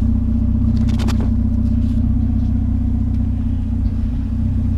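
Vehicle engine running steadily with a low, even drone, with a brief rustle or click about a second in.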